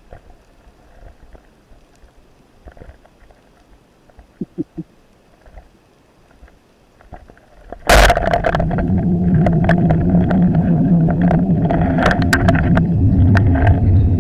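Underwater speargun firing: a sudden loud crack about eight seconds in. It is followed by continuous loud churning water noise full of clicks and rattles as the speared dentex fights on the shaft and line. Before the shot there are only faint scattered clicks.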